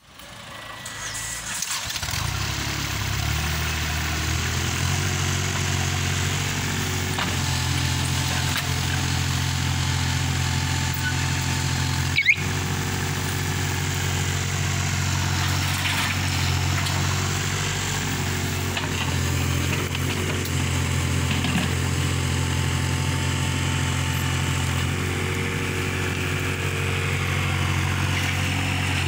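Hyundai R30Z-9AK mini excavator's diesel engine running steadily under hydraulic load as it digs soil and swings to load a truck, its pitch shifting slightly now and then as the hydraulics work. One sharp knock about twelve seconds in.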